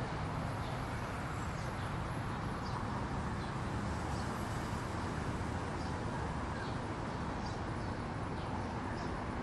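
Steady rumble of city road traffic, with short chirps from birds scattered over it and a faint, thin, high insect drone.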